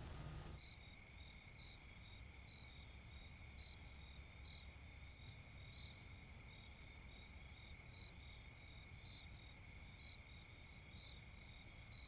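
Faint crickets chirping at night, about two short high chirps a second, over a steady high-pitched tone and a low background rumble.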